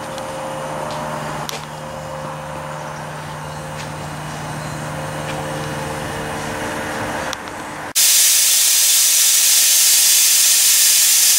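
Steam boiler's pop-off safety valve lifting about eight seconds in: a sudden, loud, steady hiss of steam venting fast, set to pop at 95 and bringing the pressure back down to a little under 90. Before it, a steady hum with a few steady tones.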